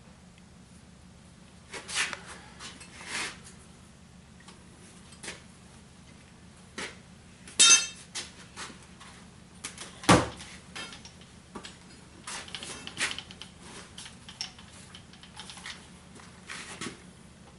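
Irregular clanks and knocks of metal being handled, with a loud ringing clang about eight seconds in and a heavy knock about two seconds later.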